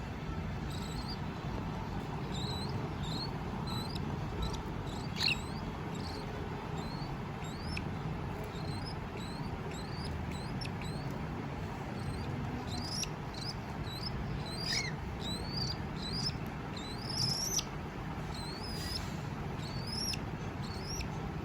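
Pet cockatiels chirping: short, high, rising chirps repeated every second or so, coming faster in the second half, over a steady low background hiss.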